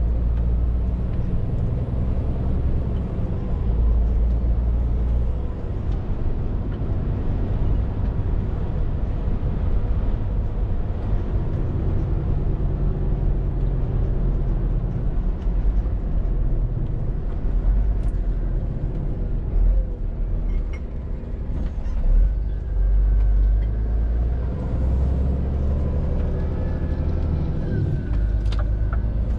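Scania R450 lorry's 13-litre six-cylinder diesel running under way, its low engine note rising and falling. A few short clicks near the end.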